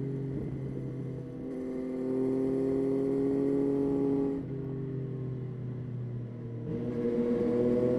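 Yamaha Tracer 9's three-cylinder engine under way. The pitch sinks slowly off the throttle, then picks up and holds. It drops about four and a half seconds in, then climbs again as the bike accelerates near the end.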